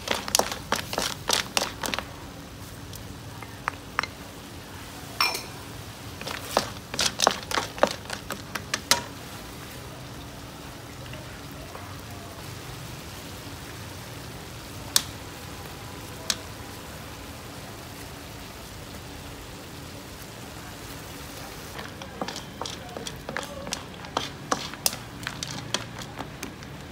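Areolata sea snail shells clattering against a wok as they are stirred with a wooden spatula: bursts of sharp clicks near the start, again in the middle stretch and toward the end, over a faint steady hiss.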